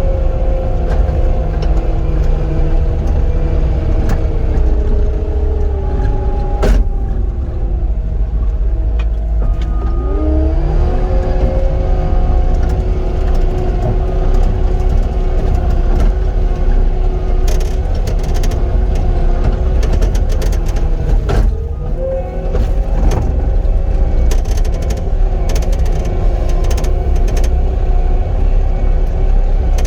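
Cat 259D compact track loader's diesel engine running at high speed while grading, its pitch sagging and recovering a few times as the hydraulics take load. Scattered sharp clicks come in the second half.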